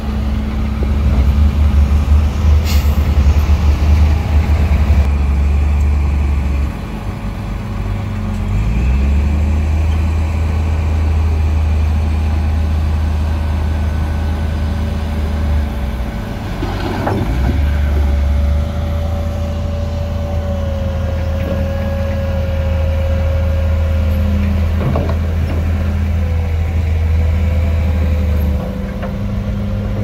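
Heavy earthmoving machine's diesel engine running steadily as a low rumble, with a thin steady whine above it. A sharp click comes about three seconds in and a short clatter at about the midpoint.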